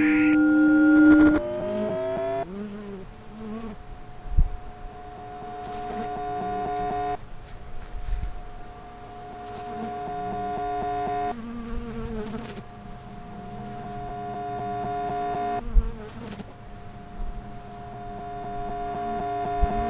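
A buzzing sound effect made of steady layered tones. It swells louder over about four seconds and then cuts off abruptly, several times over, with a few short low thumps in between.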